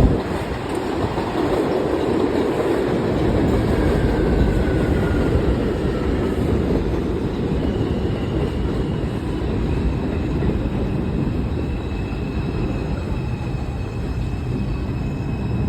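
New York City subway train running on the tracks: a steady rumble, with a faint high-pitched whine coming in about halfway.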